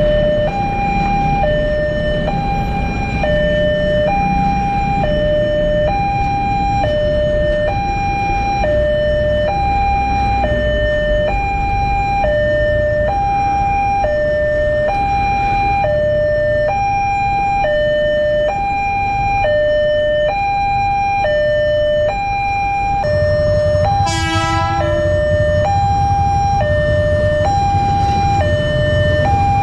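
Railway level-crossing alarm sounding a steady electronic two-note warning, a high and a low note alternating, each held about two-thirds of a second. About 24 seconds in an electric commuter train gives a short horn blast, and its low rumble builds as it reaches the crossing.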